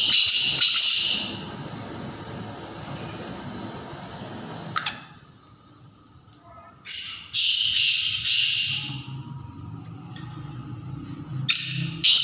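Black francolin calling: three loud, harsh multi-note calls, one at the start, one about seven seconds in and one near the end.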